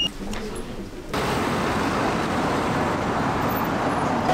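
Steady city street traffic noise, starting suddenly about a second in after a quieter moment.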